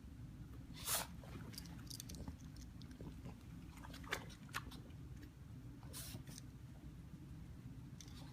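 A dog snapping and nibbling at its own back, trying to get off a slice of salami stuck there. It makes scattered short clicks and rustles, the loudest about a second in, over a steady low hum.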